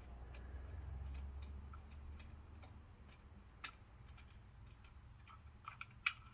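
Faint, irregular metallic clicks and ticks from hand tools working on the engine, with a sharper click a little past halfway and a quick cluster near the end, over a low steady hum.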